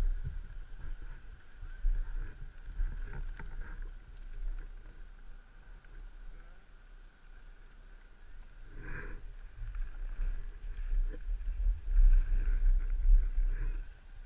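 Low rumble of wind buffeting a helmet-mounted camera's microphone, with skis sliding and scraping over packed snow as the skier moves slowly downhill. The rumble swells about nine seconds in and again near the end.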